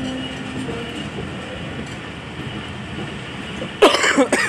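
Passenger train coach running along the rails with a steady rumble. Near the end, a person close by coughs loudly.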